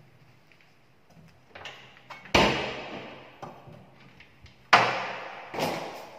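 Three loud bangs on a plywood cabinet, each fading out over about a second, with a few light clicks between them, as its doors are handled.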